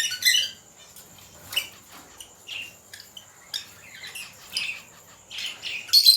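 Pet lovebirds chirping and squawking in their cages: short, shrill calls, several a second, scattered through, with louder calls near the end.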